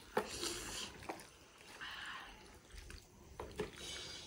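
A spoon stirring and scooping saucy mala hotpot noodles in a bowl: a few light clicks of the spoon against the bowl, with soft wet sounds of the noodles between them.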